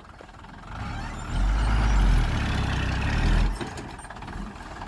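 Heavy earth-moving machine engine revving: it builds about a second in, runs loud with a deep rumble for about two seconds, then drops back to a lower run.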